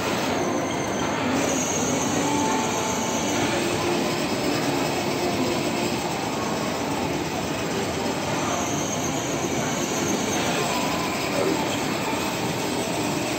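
Battery-powered ride-on toy car driving over a marble floor: its electric motors whining and hard plastic wheels rolling, a steady, unbroken noise.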